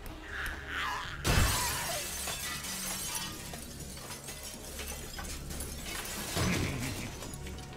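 Anime sound effect of glass shattering: a sudden loud crash about a second in, followed by a long spray of breaking glass, and a second crash about six seconds in, over low background music.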